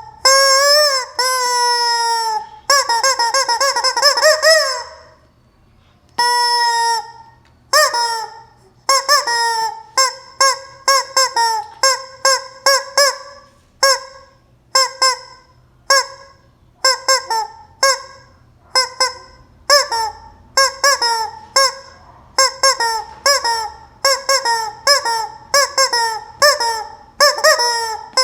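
Noise-making toy chicken squawking: a few long, bending squawks, a short pause about five seconds in, then a steady run of short squawks at about two a second.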